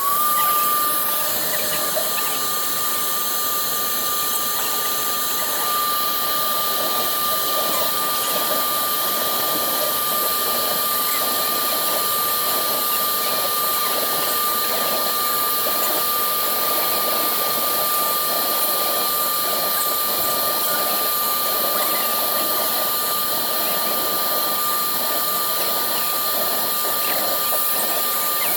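Woodworking CNC router's spindle engraving MDF: a steady high whine over the hiss of the cutting. It glides briefly up in pitch at the start, then holds a constant speed.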